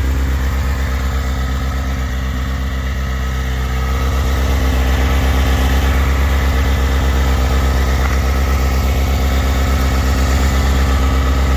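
2006 Suzuki GSX-R600 inline-four engine idling steadily through its Hindle Evolution full exhaust with quiet insert, a little louder from about four seconds in.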